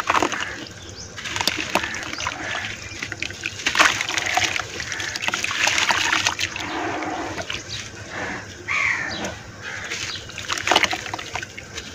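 Hands crumbling chunks of red dirt in a basin of water and squeezing the wet mud: irregular splashing and sloshing, with many small clicks as the clumps break apart.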